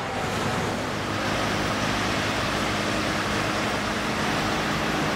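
MAN concrete mixer truck driving on a road: a steady low engine hum under a wide, even hiss of road and wind noise.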